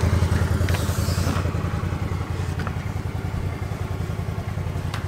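An engine idling steadily with a low, even pulse, with a few faint clicks over it.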